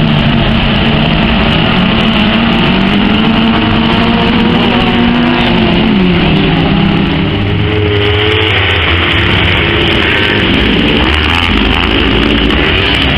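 Several race car engines running and revving together at a start, loud and continuous, their pitch rising and falling, with a change in the engine sound from about eight seconds in.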